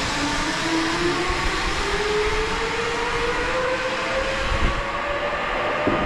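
Zipline trolley pulleys rolling along the steel cable, a whine that rises slowly and steadily in pitch as the rider picks up speed, over a low rumbling noise.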